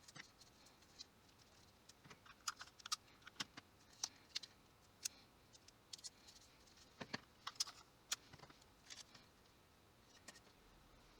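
Faint, irregular clicks and light taps, some in quick clusters, like small objects being handled.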